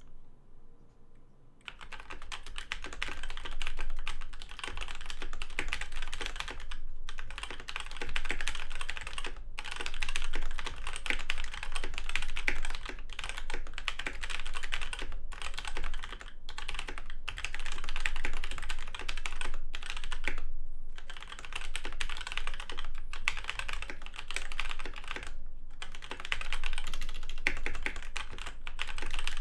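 Fast continuous typing on a budget DMK02 mechanical keyboard with off-brand red linear switches: a dense run of keystrokes starting about two seconds in, broken by brief pauses every few seconds. The sound is pretty okay, though not a match for better keyboards.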